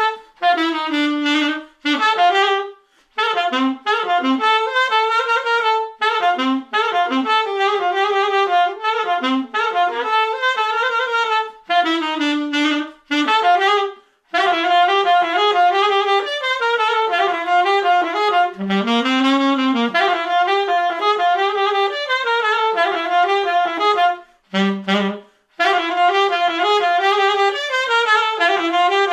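Unaccompanied saxophone playing a quick-moving, ornamented single-line melody. It breaks off for short breaths about three, fourteen and twenty-five seconds in, and dips to a few low notes near the middle and the end.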